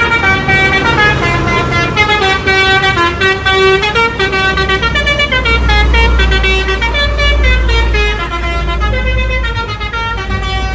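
Indonesian bus telolet horn playing a tune: a run of quick multi-tone notes stepping up and down in pitch. A low rumble swells underneath in the middle.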